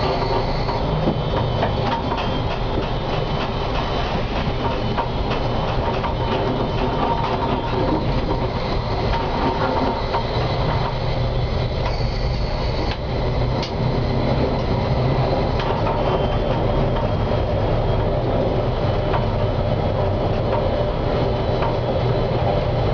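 Konstal 105Na tram running along the track, heard from inside the driver's cab: a steady noise of wheels and motors with scattered light clicks. A faint high squeal comes in about twelve seconds in.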